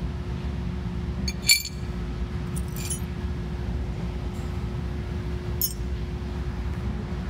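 Large shards of broken annealed glass clinking together as they are picked up and handled. There is a sharp clink about a second and a half in, a short rattle near three seconds, and another clink near the end, over a steady low background hum.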